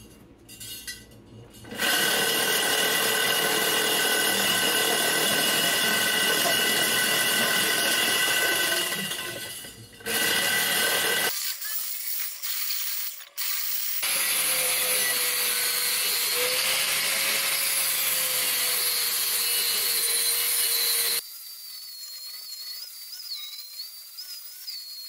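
Electric angle grinder with a flap disc grinding down the lip of an aluminum wheel, running with a steady whine in several spells that start and stop abruptly, quieter over the last few seconds.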